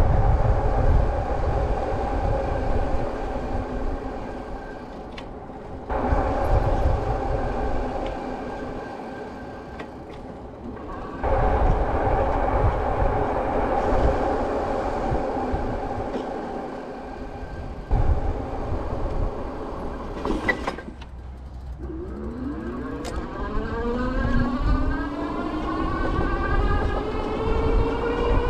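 Juiced HyperScorpion electric moped riding: wind buffeting a helmet-style action camera and tire rumble, in several short clips. Over the last few seconds the electric motor's whine rises steadily in pitch as the moped accelerates. Any brake squeal is faint at most, on freshly fitted low-noise pads.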